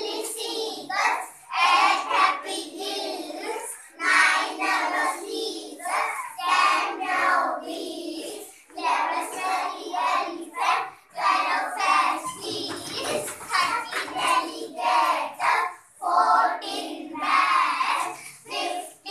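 A group of young children chanting an action rhyme together in a sing-song voice, in short phrases with brief breaths between them.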